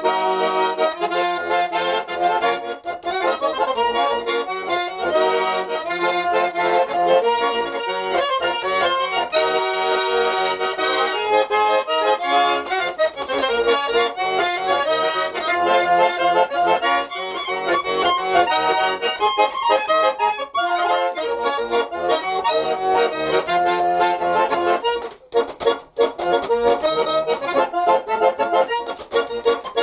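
Nizhny Novgorod garmon, a Russian button accordion, playing an improvised folk melody with chords, with a brief break in the sound near the end.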